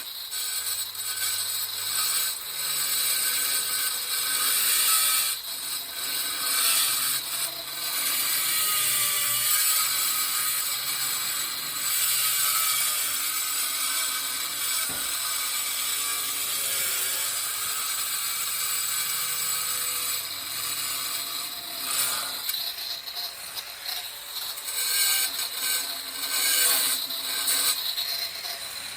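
Angle grinder with a diamond blade grinding a circular cut in stone tile around a shower tap opening. It makes a steady high hiss, and its motor pitch wavers and the level rises and dips every few seconds as the blade is pressed and tilted into the stone.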